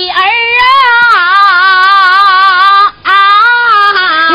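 A woman singing in a high voice: one long held note with a slow, even vibrato for about three seconds, a brief break, then a second phrase.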